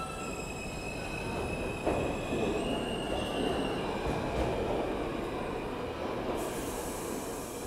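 New York City subway train running through the station: its wheels squeal in steady high tones that shift in pitch, over the rumble of the cars. About six seconds in, a loud high hiss joins.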